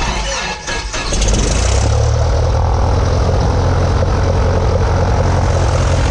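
Cessna 172's air-cooled piston engine cranked by its starter: about a second of uneven chuffs, then it catches and settles into a loud, steady idle with the propeller turning.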